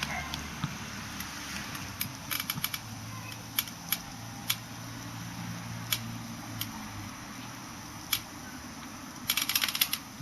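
Irregular sharp clicks and ticks over a steady low hum, with a quick run of rapid clicks near the end.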